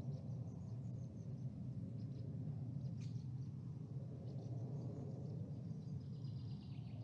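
Looped birdsong recording, with birds chirping and trilling at intervals over a steady low background noise. It is the track that replaces the house sound when the live feed's audio is cut.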